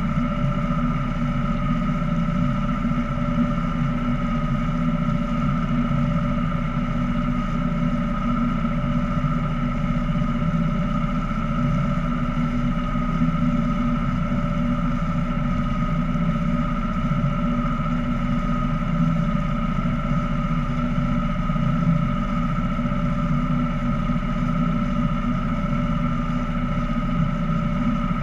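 Small boat's motor running steadily under way: a low drone with a steady whine on top that does not change in speed or level.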